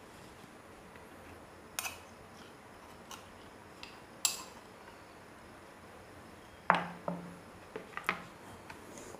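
A metal spoon and dishes clinking while rasgulla are spooned from a bowl onto a plate: a few separate sharp clinks, then a quick cluster of louder knocks and clinks about two-thirds of the way in.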